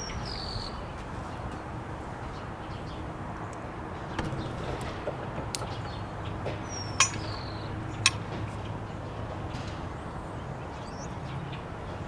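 A bird gives two short falling chirps, one at the start and one about seven seconds in. A few sharp clicks and taps come from the RV door lock handle being handled and fitted against the door, the loudest about seven and eight seconds in.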